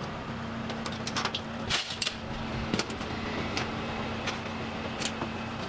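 Rusty metal chains clinking and rattling in scattered short bursts as they are unlocked and pulled off a steel stall, links dropping onto the steel tabletop, over a steady low hum.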